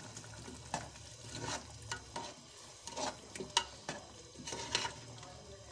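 A metal spoon stirring potato chunks and chicken in a steel pot of frying curry masala: irregular clicks and scrapes of the spoon against the pot over a low sizzle.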